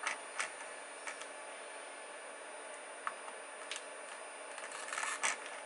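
Soldering iron tip tapping and scraping along the solder joints of a circuit board being desoldered: scattered light clicks, with a small cluster near the end, over a faint steady hiss.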